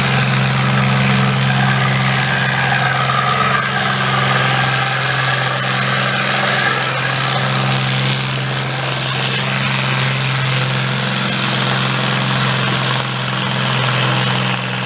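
Diesel farm tractor engine running hard under full load as it drags a weight-transfer sled, its pitch held steady throughout.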